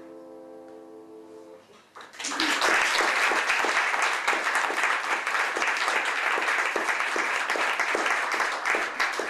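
A held piano chord fades away, then about two seconds in an audience starts applauding, much louder than the chord, and keeps clapping.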